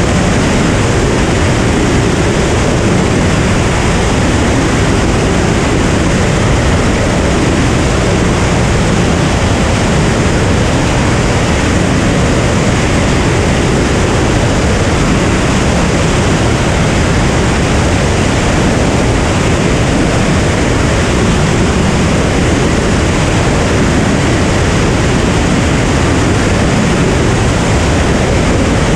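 Cirrus SR22 light aircraft in cruise, heard from a camera mounted outside the airframe: a steady, loud rush of airflow over the microphone, mixed with the drone of the engine and propeller.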